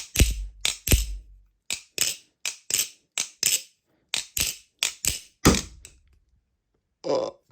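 Balisong trainer being flipped: its handles and latch clack sharply over and over in a quick, uneven rhythm, some strikes with a dull thud, stopping about six seconds in. Part of the knife slaps the inside of the handle as it turns.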